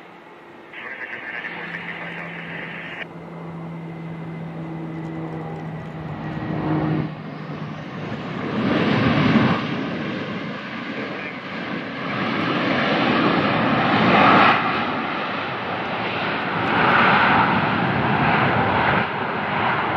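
Airbus A321 jet engines roaring on the landing rollout just after touchdown. The noise grows steadily louder and swells in several waves as the airliner decelerates down the runway.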